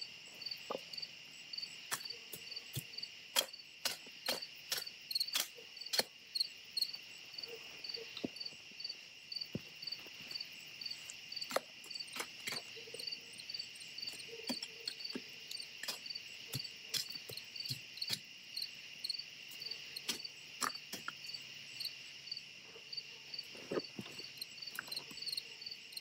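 A loud cricket chirping close by in a steady, even rhythm of about three chirps a second. Irregular sharp clicks and knocks, the loudest sounds, are scattered among the chirps.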